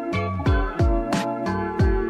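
Instrumental background music with a steady beat: held chords over a deep drum whose pitch drops on each hit, and a sharp hit about every two-thirds of a second.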